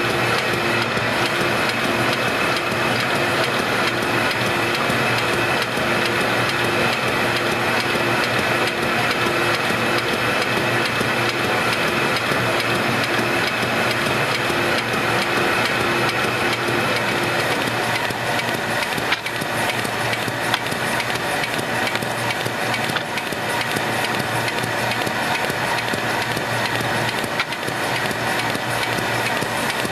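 Kirk-Rudy KR219RSDF plow-fold paper-handling machine running steadily as it feeds and folds sheets. A pulsing tone stops about halfway through, and there are a couple of sharp clicks later.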